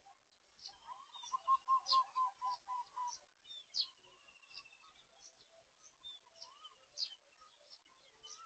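Several wild birds calling: sharp high chirps repeat all through, with a short quick trill a few times. About a second in, the loudest call comes, a run of about eight quick, evenly spaced lower notes lasting some two seconds.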